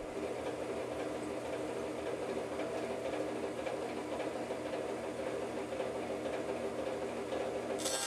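Bandsaw running with a steady motor hum and blade whir, not yet cutting; near the end a brighter hiss comes in as the blade starts into a green locust log.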